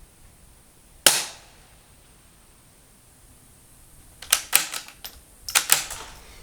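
A suppressed .22 Ruger Precision Rimfire rifle fires once about a second in: a single sharp crack that dies away quickly. From about four seconds in come two quick runs of sharp metallic clicks as the bolt is worked for the next round.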